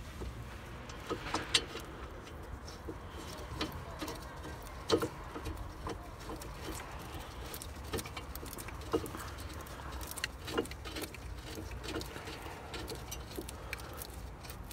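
Light metallic clicks and taps, a few sharper ones spread through, as the steel caliper bracket of a Toyota Corolla E12's front brake is held against the knuckle and its mounting bolt is threaded in by hand.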